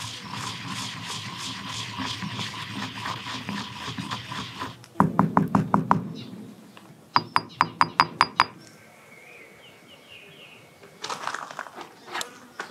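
Stone pestle grinding salt and black pepper in a stone mortar: about five seconds of steady gritty grinding, then quick runs of stone-on-stone knocks and clicks as it pounds. Near the end comes a light metallic rattle as a stainless steel mesh cover is handled.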